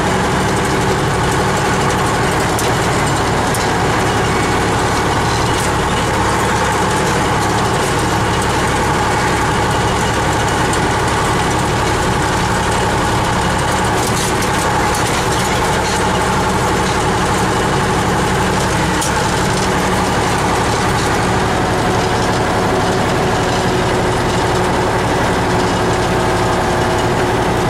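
Tractor's diesel engine running steadily as it drives, heard from inside the cab.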